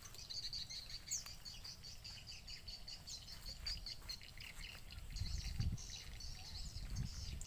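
Small birds chirping repeatedly in quick high notes, with a low rumble coming in during the second half.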